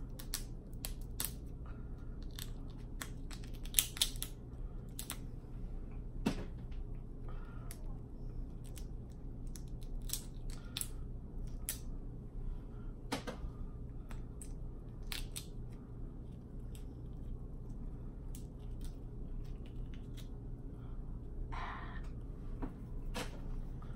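Snow crab leg shells cracking and snapping as they are broken apart by hand: many sharp, irregular cracks over a steady low hum.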